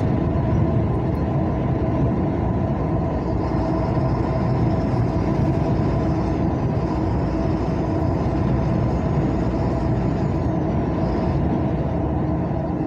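Steady engine and road noise of a vehicle driving along a highway, with a constant hum of a few steady tones over the rumble.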